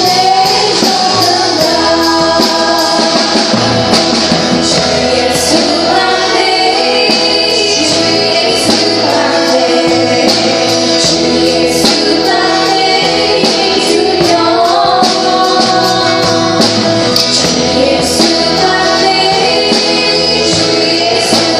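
Live worship band playing a song with voices singing along, loud and steady, with high percussive strokes such as tambourine or cymbal hits keeping time.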